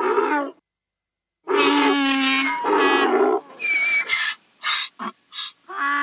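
Mules braying: a short call, a pause of about a second, then a long drawn-out call followed by several shorter broken ones.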